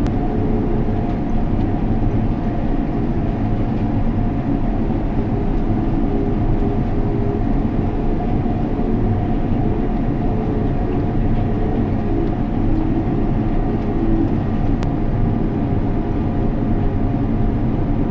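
Heavy harvest machinery running steadily: a constant diesel drone with a few steady hum tones, unchanging throughout.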